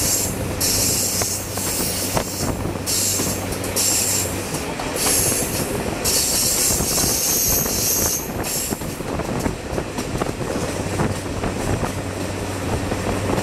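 X 2800 diesel railcar running along curving track, its wheels squealing on and off in repeated high screeches that stop about nine seconds in as the track straightens, over the steady low hum of the engine and the rumble of the running gear.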